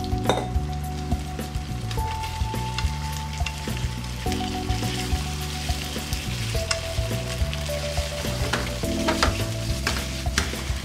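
Starch-coated chicken breast pieces sizzling in oil in a nonstick frying pan, with sharp clicks as they are turned and stirred with wooden chopsticks. Soft background music with held notes plays underneath.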